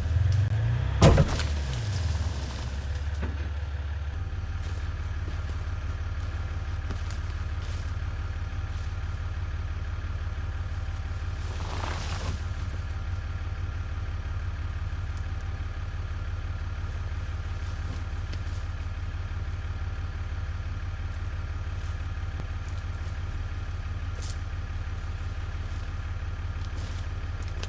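A motor vehicle engine running steadily at an even speed. There is a sharp knock about a second in.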